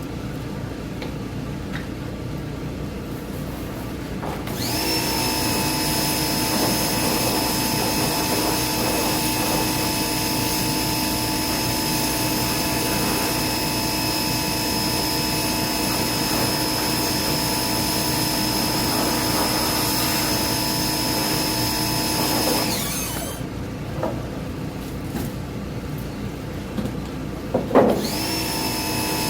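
An electric motor switched on, spinning up to a steady whining run, held for about eighteen seconds, then winding down, and switched on again at the very end.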